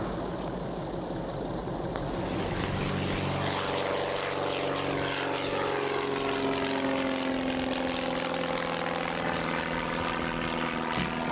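Propeller airplane engine running, a steady droning hum that firms up a couple of seconds in and holds with slight shifts in pitch.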